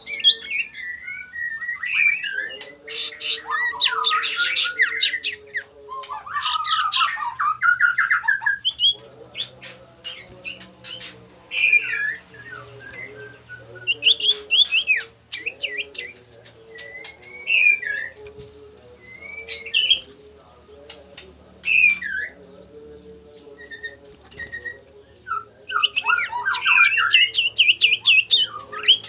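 Common iora (cipoh) singing its challenge call: bouts of fast, rattling trills and sharp chattering notes, with short pauses between bouts. A steady low hum runs underneath.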